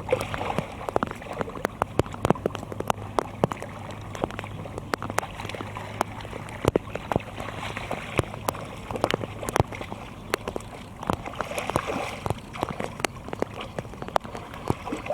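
Water sloshing and splashing in shallow muddy water as hands grope through it, with many quick, sharp splashes.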